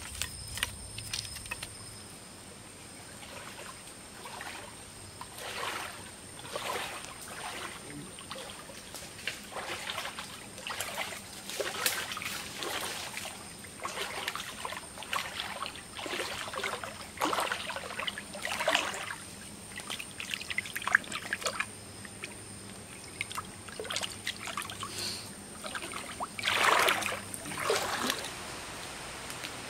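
Shallow stream water sloshing and splashing as a person wades through it, about one splash a second, with the loudest splashes near the end.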